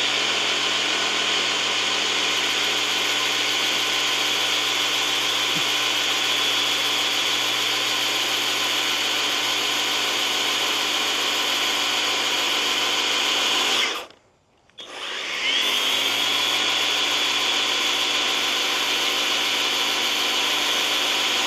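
EGO cordless power head driving the Rotocut attachment's counter-rotating blades with a steady electric whine as they cut grass along the lawn edge, the blades freshly sharpened. About fourteen seconds in the motor cuts out for about a second, then spins back up, rising in pitch, and runs steady again.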